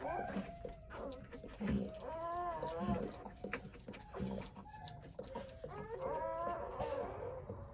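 Newborn Doberman puppies crying: short, high squeals that rise and fall, several times over.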